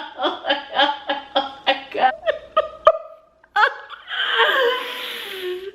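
Hard laughter: a rapid string of short 'ha' pulses, about three a second, for nearly three seconds. After a brief break comes a louder, shrill squeal with sliding pitch.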